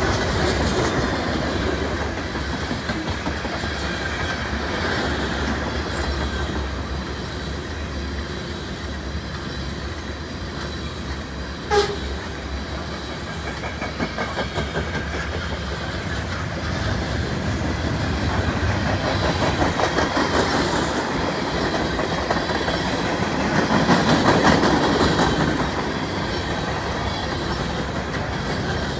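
Freight cars of a mixed freight train rolling past at close range: a steady rumble of steel wheels with clickety-clack over rail joints. A single sharp knock sounds about 12 seconds in.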